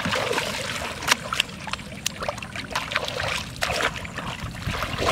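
Shallow muddy paddy water splashing and sloshing in quick, irregular splashes as hands, legs and a woven basket churn through it.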